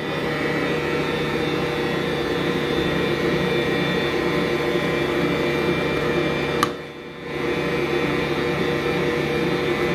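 Electric stand mixer with a centre-post dough hook running steadily as it kneads stiff bread dough while fresh flour is worked in. About two-thirds of the way through there is a click, and the hum dips for about half a second before it carries on.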